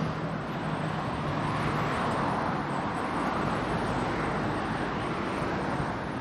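Steady road traffic on a city street: a continuous rush of passing cars with no single vehicle standing out.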